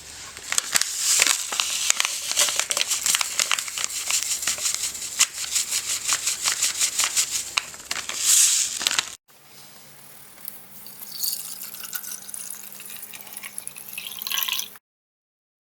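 Wet scrubbing in quick, repeated strokes. After a sudden cut about nine seconds in, a low steady hum plays under lighter scraping.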